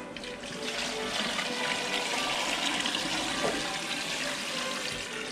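Water pouring from an enamel bucket into a large pot of beef pieces: a steady splashing rush that swells after the first moment and eases near the end, filling the pot with salted water.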